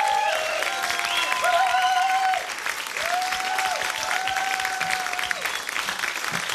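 Studio audience applauding, with several long, high 'woo' cheers over the clapping.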